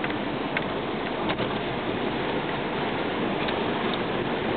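Toyota 4Runner driving on a dirt forest road, heard from inside the cab: steady tyre and engine noise with a few light ticks.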